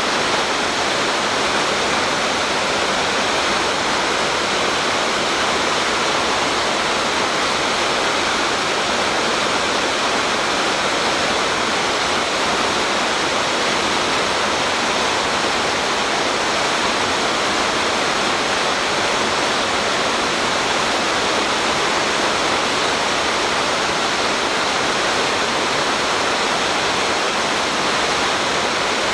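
Waterfall on a mountain stream: a steady, loud rush of falling water that stays even throughout.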